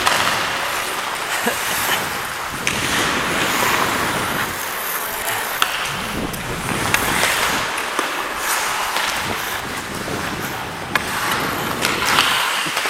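Ice hockey skate blades scraping and carving the ice in repeated strides, swelling and fading with each push, with a few sharp clicks.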